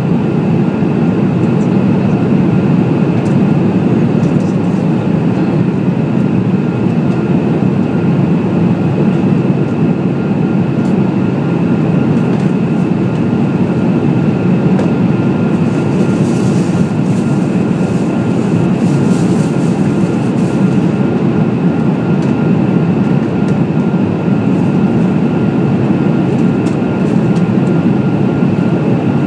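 Steady cabin roar of a Boeing 787-8 airliner in flight, heard from a passenger seat while climbing through about 22,000 ft. The deep even rumble of engines and airflow carries a couple of faint steady high tones, and a light hiss rises over it for a few seconds past the middle.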